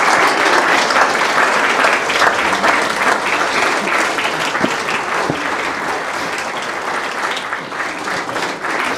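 Audience applauding: a dense run of hand claps that gradually thins and fades.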